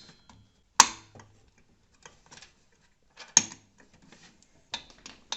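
A few sharp knocks and clicks of hard parts being handled and set down on a desk while a CPU cooler is being fitted. The loudest knock is about a second in, with another a little past halfway and a couple of lighter clicks near the end.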